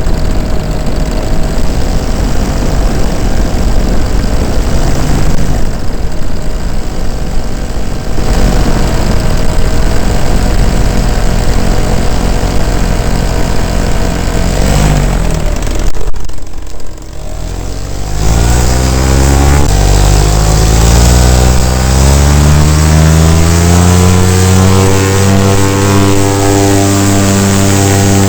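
Paramotor engine and propeller running. About sixteen seconds in the engine drops off briefly, then revs up, its pitch rising steadily over several seconds before holding at high power.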